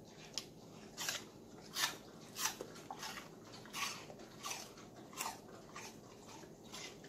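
A dog crunching and chewing pieces of raw apple, with a crisp crunch about every two-thirds of a second, ten or so in all.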